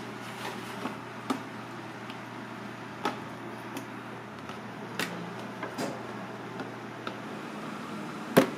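Scattered sharp knocks and clatter of kitchen work, food and utensils being handled on a cutting board and a steel tray, every second or two over a steady low hum; the loudest knock comes near the end.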